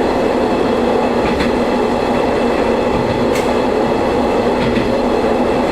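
Diesel railcar running along the line, heard from inside the train: a steady engine drone with wheel and rail noise, broken by a few sharp clicks.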